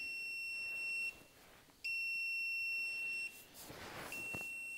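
AcDelco digital torque adapter beeping as the set torque is reached on each pull of the wrench: three long, high-pitched steady beeps, each lasting a little over a second, with short gaps between them. Faint clicks and knocks from the wrench and drive fill the gaps.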